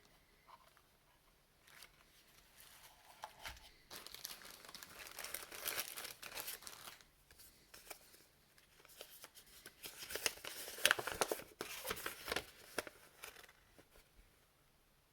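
Packaging being unwrapped by hand: plastic wrapping crinkling and tearing in two long bouts of crackling, with quieter handling between.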